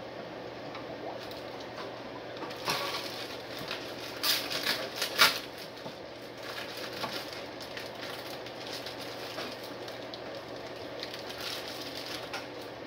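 Raw whole chickens being unwrapped and handled over a stock pot: crinkling of plastic packaging and small knocks, in short clusters about three seconds in and louder around four to five seconds in, over a steady fan hum.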